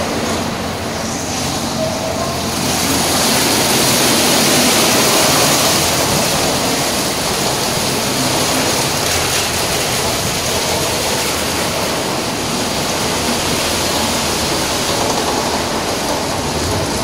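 PDQ ProTouch soft-touch car wash gantry: a spinning foam side brush scrubs the vehicle while water sprays, a steady rushing swish that swells slightly after a few seconds.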